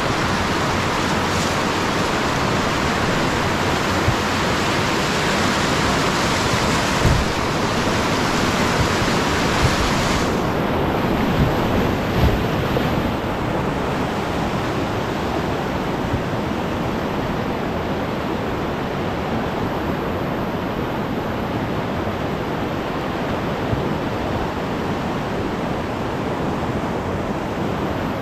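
Steady rush of whitewater rapids on a mountain river, with a few short knocks in the first half. About ten seconds in, the sound turns duller, losing its high hiss.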